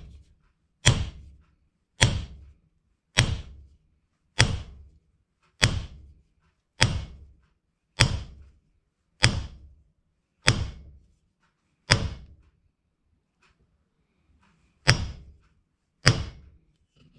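The butt end of a new hickory claw-hammer handle knocked down on an anvil, driving the head down onto the oiled handle to seat it. A sharp knock about every second, ten in a row, then after a pause two more.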